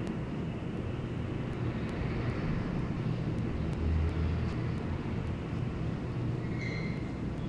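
Steady low rumble of distant city traffic and wind on the nest-cam microphone, with one short high call near the end.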